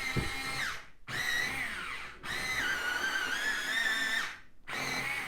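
Electric pencil sharpener running in four short bursts, the longest about two seconds, with a motor whine that sags in pitch as the blades bite into a coloured pencil.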